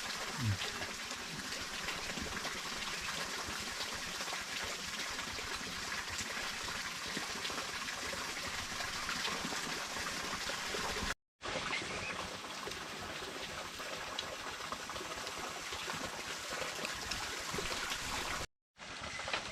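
Steady sound of running, trickling water, broken twice by a brief cut to silence.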